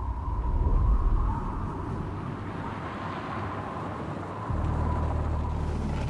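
Low rumble of a car engine that settles into a steady idling hum about four and a half seconds in, under a thin, steady high tone.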